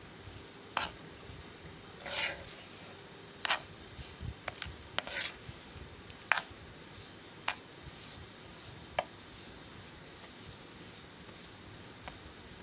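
Steel spoon scraping and knocking against a non-stick frying pan while stirring semolina in melted ghee, the start of roasting it for suji halwa. About ten irregular clicks and short scrapes, growing sparse after about nine seconds.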